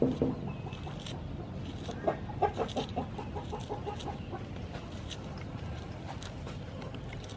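A hen clucking in a quick run of short calls about two seconds in, over faint scrapes and clicks of a small knife peeling shallots by hand.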